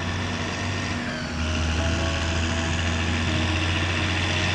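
Massey Ferguson 8220 tractor's diesel engine running steadily as it pulls a loaded silage trailer. About a second in the engine note dips briefly with a falling whine, then it carries on steadily.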